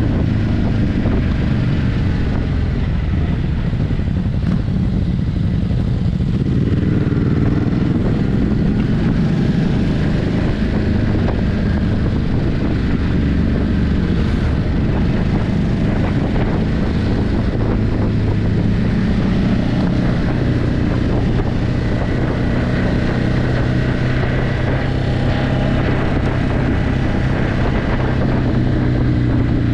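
Ducati Hypermotard 950's twin-cylinder engine running through its stock exhaust while riding, the engine note dipping and then climbing again a few seconds in. Wind noise on the microphone.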